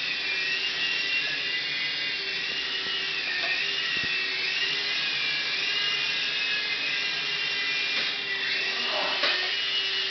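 Small indoor remote-control helicopter hovering and flying, its electric motor and rotors giving a steady high whine whose pitch wavers up and down as the throttle changes.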